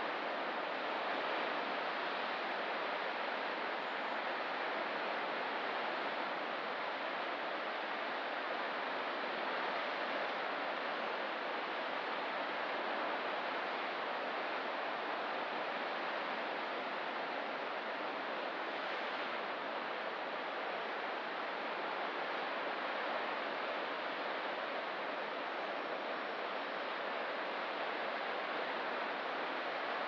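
Ocean surf washing against a rocky shore, heard as a steady, even rush with no single wave break standing out.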